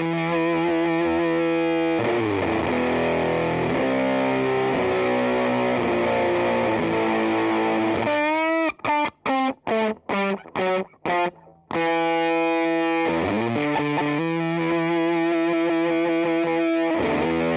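Electric guitar played through a Sola Sound Pro MkII Tone Bender fuzz pedal: thick, fuzzy sustained chords, with a run of about six short, choked stabs roughly halfway through before the chords ring out again.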